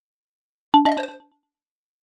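A short metallic ding: a sharp double strike about two-thirds of a second in, ringing with a low and a middle tone and dying away within half a second.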